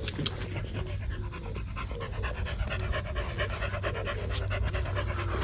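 Puppies panting quickly and steadily while they play.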